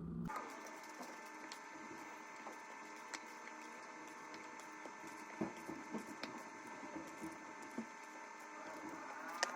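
Scattered light knocks and clicks of kitchen food preparation, over a steady high-pitched hum.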